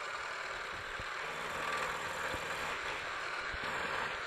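Milling machine running as an end mill side-mills a flat on a workpiece clamped in a vise: a steady cutting hiss, with a low hum coming in after about a second and a few light clicks. The pass is being taken as a climb mill, by mistake rather than by intent.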